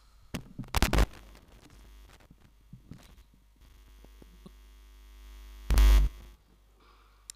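Handling noise on a stage microphone: a cluster of loud knocks about a second in and another knock about six seconds in, with an electrical hum swelling just before the second one.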